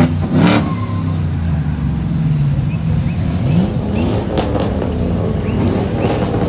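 Several vehicle engines idle with a steady rumble, broken by quick revs that rise in pitch near the start, about three and a half seconds in, and again near the end. Short, sharp bursts of noise come just after the start and around four and a half and six seconds in.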